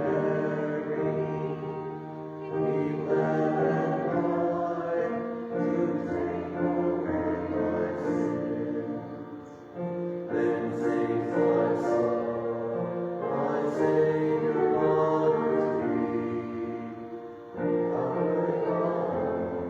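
Voices singing a hymn together in held chords with accompaniment, in phrases a few seconds long.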